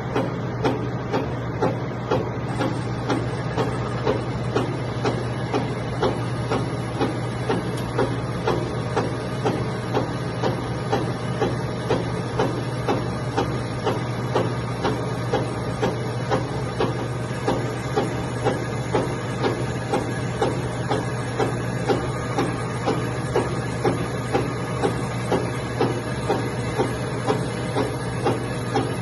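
Metal lathe turning down a jet pump drive shaft, its motor humming steadily while the cutting tool takes a cut, with a regular knock about one and a half times a second.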